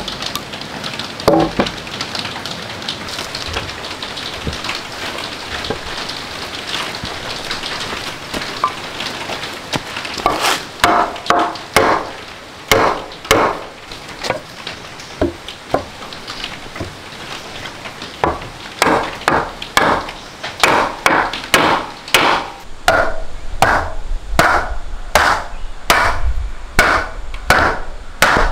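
Wooden mallet striking a hardwood frame, knocking its mortise-and-tenon joints together. The sharp knocks start about ten seconds in, scattered at first, then settle into a steady run of about one and a half a second. A steady hiss fills the first ten seconds.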